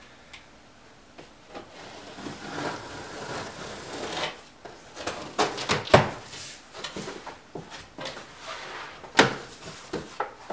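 Large cardboard shipping box being opened by hand: flaps rubbing and scraping, with several sharp cardboard snaps and knocks as the flaps are pulled up and folded back, the loudest about six seconds in.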